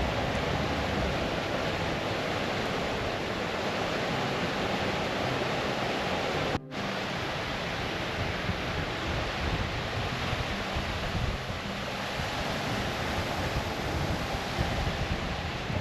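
Steady rushing outdoor noise: wind buffeting the microphone over the sound of running water. It breaks off once in a brief dropout a little before halfway.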